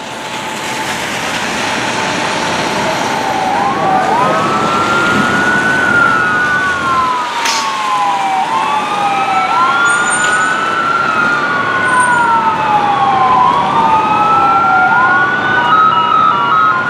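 Wailing electronic sirens of approaching fire apparatus: two wails out of step, each rising and falling slowly about every five seconds. They grow louder over the first few seconds.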